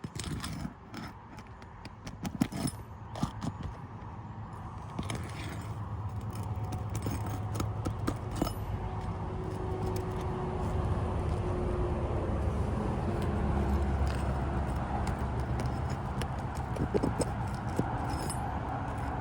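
Asphalt roof shingles being lifted and their nails worked out: scattered clicks, taps and scrapes, thickest in the first half, over a steady low rumble that builds a few seconds in and stays.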